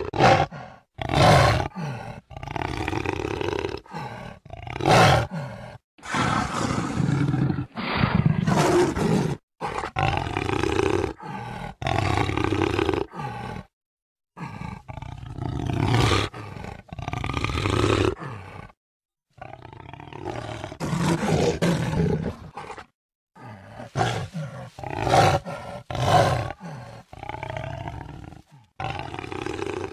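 Jaguar roaring and growling: a run of loud calls a second or two each, spliced together with abrupt cuts and a few brief gaps of silence.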